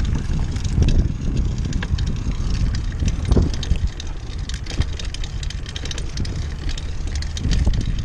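Wind buffeting the microphone while a downhill mountain bike rolls over rough ground, with rapid clicks and rattles from the bike.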